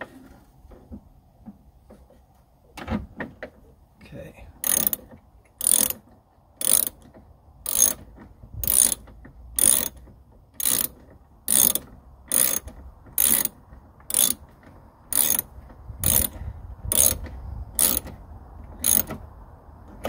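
Small hand ratchet on a long extension, its pawl clicking in a short burst on each return swing about once a second, starting about three seconds in, as it runs in a bolt holding a car's exterior door handle.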